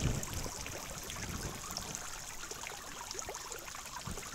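Pond fountain spray falling onto the water surface: a steady trickling of many small drips and splashes, with a soft low thump right at the start.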